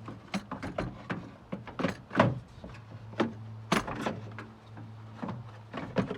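Irregular metallic clanks and knocks of hand tools and loosened parts during a truck front-end teardown, over a steady low hum.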